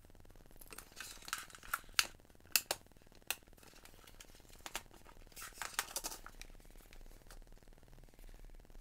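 Hands handling a small LCD monitor, its plastic stand and cable: a run of sharp plastic clicks and knocks in two groups, the first about a second in and the second around the middle.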